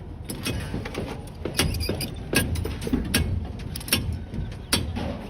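Sharp metallic clicks and clanks of steel rebar and tie wire being handled and tied, coming irregularly about once or twice a second over a low steady rumble.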